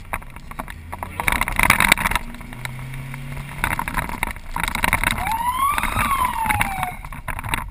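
Cabin noise from a moving police patrol car, with loud rattling and knocking over the road. About five seconds in, a siren gives one short whoop that rises and then falls, the brief signal a patrol car sounds as it closes on a vehicle.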